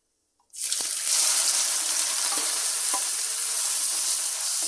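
Chopped onions dropped into hot oil in an iron kadai, sizzling loudly from about half a second in, with a few light scrapes of a steel ladle stirring them.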